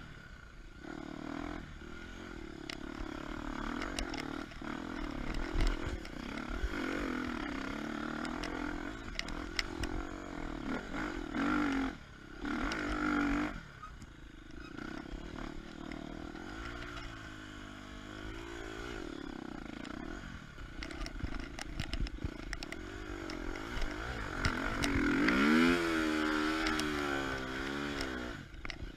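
KTM 250 EXC-F single-cylinder four-stroke enduro engine, its revs rising and falling constantly as the bike is ridden over trail. The throttle cuts briefly twice a little before halfway, and there is a run of quick rev rises and falls near the end.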